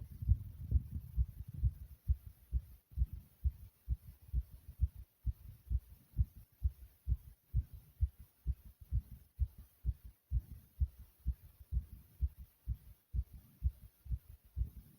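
Human heartbeat recorded close up: a regular, fast run of low thumps, each beat a close pair of knocks (lub-dub).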